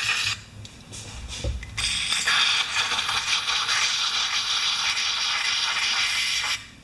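Aerosol carburetor cleaner sprayed through its extension straw into a pressure washer's unloader valve to clean it. There is a short spray at the start, then a steady hiss of about four seconds that cuts off near the end.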